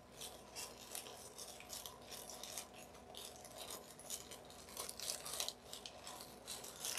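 Faint scratchy rustling of crinkled paper coffee filters being pressed and prodded with a small tool, in many small irregular scrapes and crackles over a faint steady hum.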